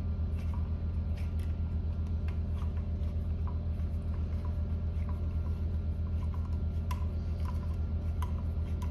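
Small irregular clicks and ticks of a 3/16 hex key turning the screw that holds the AR pistol grip, over a steady low hum.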